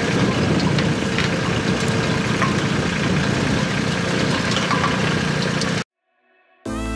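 Tractor engine running steadily as it pulls a one-row onion transplanter, with scattered light clicks and rattles from the planter's mechanism. Near the end the sound cuts off suddenly, and after a short silence soft guitar music begins.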